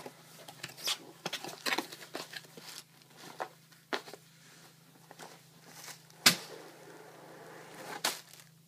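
A cardboard mailer envelope being opened by hand: scattered rustling, tearing and crinkling of paper and plastic, with the loudest sharp crack about six seconds in. Near the end a plastic bag of Lego minifigure parts is pulled out of the envelope, crinkling.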